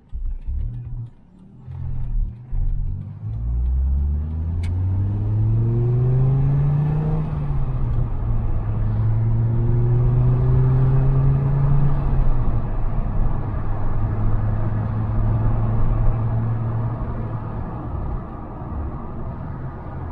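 1997 Dodge Viper GTS's 8.0-litre V10 pulling away with a few uneven bursts of throttle, then accelerating. Its low exhaust note rises in pitch and drops at an upshift about seven seconds in and again around twelve seconds. It then cruises at a steady note and eases off near the end.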